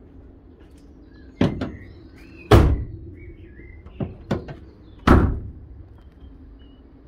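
The rear barn doors of a Peugeot Partner van are shut by hand. There are a few light knocks, then one door slams about two and a half seconds in. More knocks follow, and the second door slams about five seconds in, the loudest. Birds chirp briefly between the slams.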